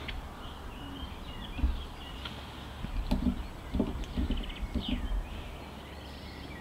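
Birds chirping in the background, with a few soft bumps and a click of hands handling the camcorder and its lens filter.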